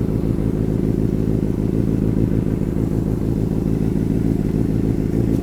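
Benelli TNT 600i's inline-four engine idling steadily through an aftermarket IXIL exhaust, just after a cold start and held off the throttle while it warms up.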